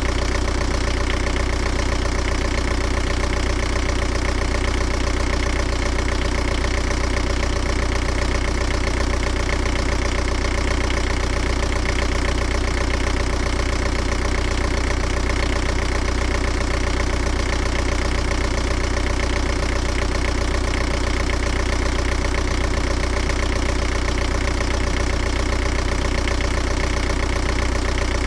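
Engine idling steadily, with an even, unchanging beat.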